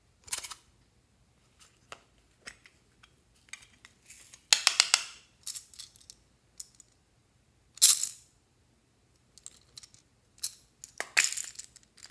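Small hard plastic cases being handled and snapped open, with plastic pieces and beads clicking and rattling in several short bursts.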